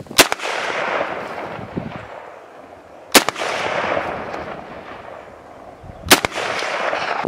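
Bolt-action rifle firing three shots about three seconds apart, each shot followed by a long echo that dies away over a couple of seconds.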